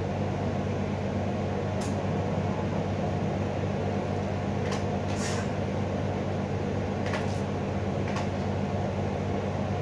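A steady low hum in the room, with a few brief soft rustles, the loudest about five seconds in, as kite thread is handled and knotted.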